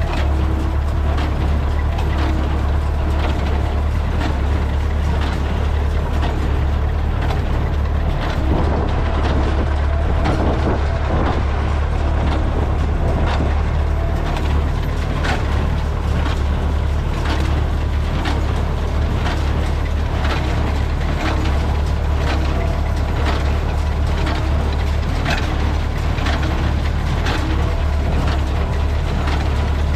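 Massey Ferguson 575 tractor's four-cylinder diesel running steadily under load while driving a New Holland 377 square baler, with the baler's plunger and knotter mechanism clattering in a steady rhythm as it bales hay.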